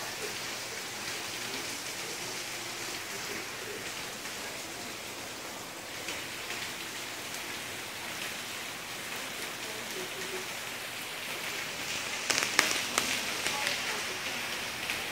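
Heavy rain pouring steadily onto pavement and standing water. About twelve seconds in, there is a louder spell of sharp crackles.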